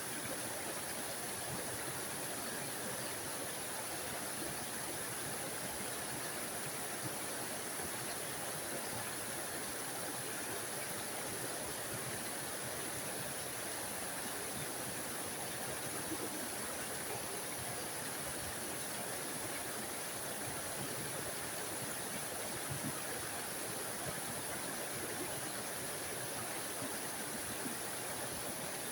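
Tiny waterfall, water rushing steadily with a bright, high hiss.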